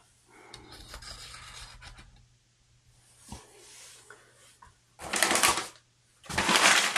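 Rustling and scraping from hands handling a freshly unboxed potted plant, in short spells, the loudest about five seconds in and again from about six seconds on.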